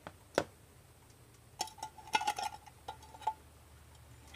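Small metal tool clicking and clinking against a carburetor body and tin can. One sharp click comes about half a second in, then a run of light clinks with brief metallic ringing between about 1.5 and 3.5 seconds.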